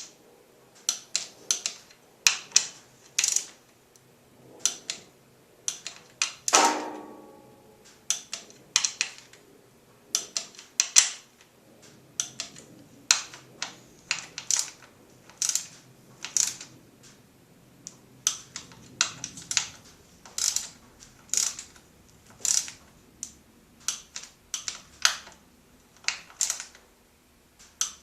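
Socket wrench clicking in short strokes as the fork clamp pinch bolts are tightened back and forth toward 14.5 foot-pounds, with one louder metallic clank that rings on briefly about six and a half seconds in.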